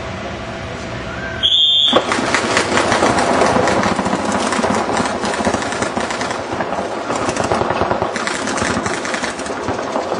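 A short high beep about one and a half seconds in, then rapid fire from many reball markers, the shots overlapping into a dense rattle.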